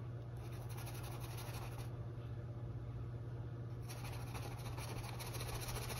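Paintbrush bristles scratching across a stretched canvas in two spells of strokes, about a second long and then two seconds long, laying on acrylic paint. A steady low hum runs underneath.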